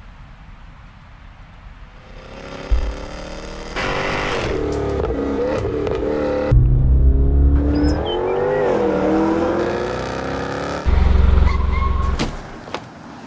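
Sound-effect mix of a sports car engine revving and accelerating, its pitch climbing, dipping and climbing again. The mix is punctuated by sudden heavy low booms about 3, 6½ and 11 seconds in.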